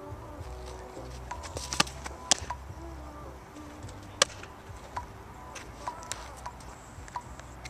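A softball smacking into leather gloves: a couple of sharp pops about two seconds in as the pitched drop ball lands in the catcher's mitt, then another sharp pop about four seconds in as the return throw is caught in the pitcher's glove, with lighter ticks and scuffs in between.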